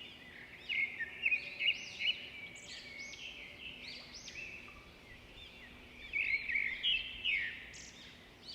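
Small songbirds chirping and singing in a busy chorus of short, high, quickly repeated calls, louder about a second in and again near the end.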